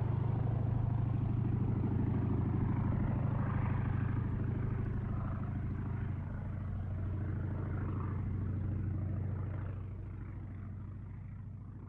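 Helicopter flying past fast, its rotor beating in a steady rapid thud over a low engine drone. It grows quieter about ten seconds in.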